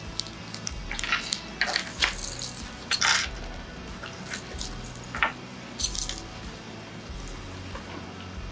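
Scattered clicks and clinks of stamping tools handled on a tabletop: a clear plastic ink-pad case and a wooden-backed rubber stamp picked up, set down and pressed onto a canvas tote bag. The clicks bunch between about one and three seconds in and again around five to six seconds.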